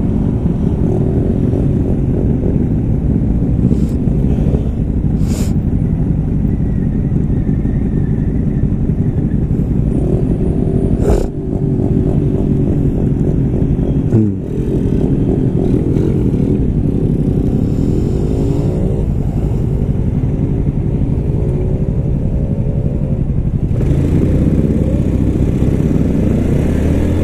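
Yamaha Lagenda 115ZR moped engine running under way through traffic, its revs rising and falling repeatedly as it pulls away and slows. The revs drop briefly about fourteen seconds in, and there is a sharp click about eleven seconds in.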